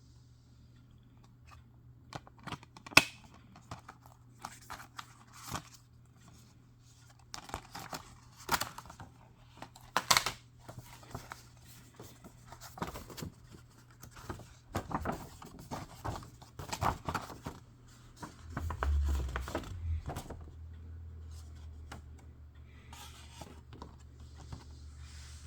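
Plastic shrink-wrap being torn, cut and peeled off Blu-ray cases, with irregular crinkling and the clicks of the cases being handled. A low rumble joins about three-quarters of the way through.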